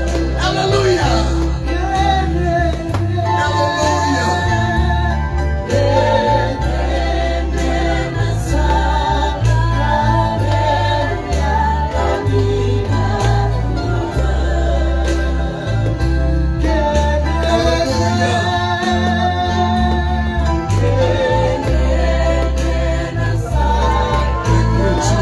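Live gospel worship music: voices singing over an amplified band, with a prominent bass line changing note every second or so.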